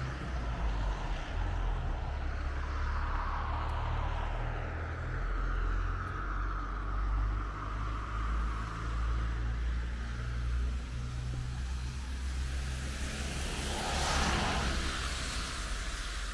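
Car tyres hissing on a wet road: a long, slowly swelling and fading pass-by over the first seconds, then a shorter, louder one about fourteen seconds in, over a constant low rumble.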